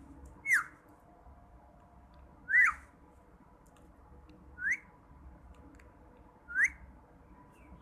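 Pet parrot giving short rising beep-like whistles, imitating a beep, four times about two seconds apart.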